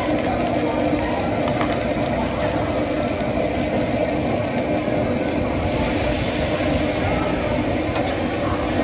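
Tofu skin and green chilies sizzling in a hot wok over a steady low roar. About five and a half seconds in the hiss grows louder as a burst of steam rises from the wok.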